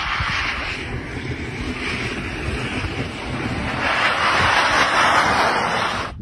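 Wind buffeting the microphone as a steady rushing noise, growing louder about four seconds in.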